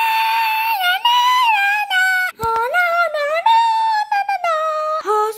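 A child singing wordlessly in a very high, squeaky voice: long held notes that slide up and down, with a few short breaks.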